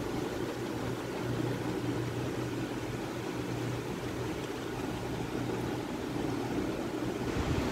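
Steady low mechanical hum with an even hiss running through, unchanging throughout.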